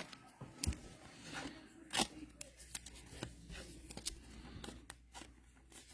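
Trading cards and their packaging being handled: soft scrapes and rustles with a few sharp clicks, the loudest about two seconds in.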